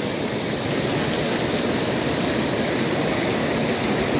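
Steady rush of fast river water running over rocks and rapids.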